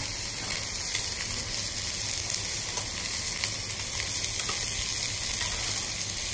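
Steady sizzling of bacon, mushrooms and cherry tomatoes frying in olive oil, over a pot of boiling water, with a metal spoon stirring spaghetti in a mesh strainer basket giving a few faint clicks.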